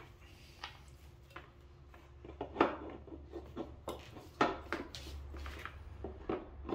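Scattered clicks and light knocks as a plastic cooling fan with its viscous clutch is handled and screwed by hand onto its left-hand-threaded fan drive. Two sharper knocks come about two and a half and four and a half seconds in.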